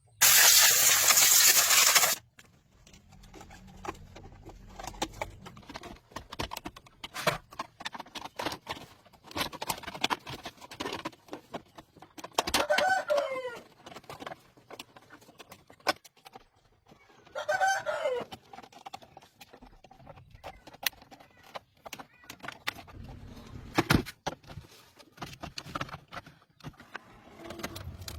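A loud burst of hissing noise for the first two seconds, then scattered clicks and knocks, with a bird giving two long calls that fall in pitch at the end, about halfway through and again some five seconds later.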